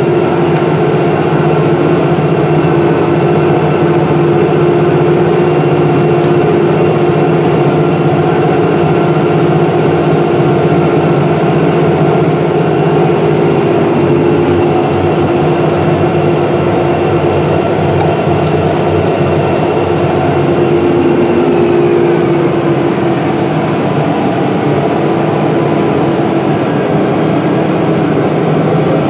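Deutz-Fahr 9340 TTV tractor heard from inside its cab while working under load pulling a high-speed disc: a steady engine drone with a higher whine over it. The pitch eases slightly about three-quarters of the way through.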